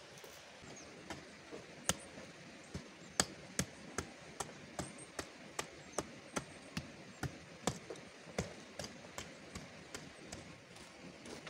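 A small hand hoe with a wooden handle chopping repeatedly into dry, stony ground: sharp separate strikes at about two to three a second, starting about a second in.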